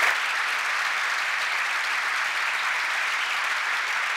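A large seated audience applauding steadily at the end of a talk.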